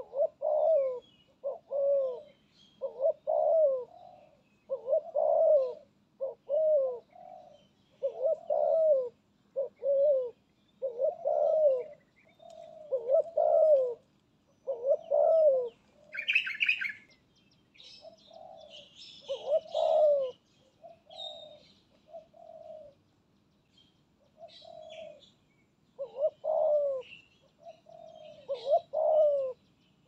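Spotted dove cooing over and over, its deep notes coming in short groups with brief pauses. A smaller bird gives a higher chirp about sixteen seconds in, with faint twittering now and then.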